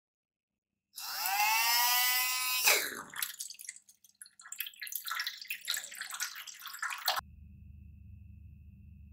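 Small DC motor of a homemade water pump whining as it spins up, its pitch rising and then levelling off, followed by water spattering and splashing from the pump's outlet into a tub for a few seconds. Near the end this gives way to a faint steady low hum.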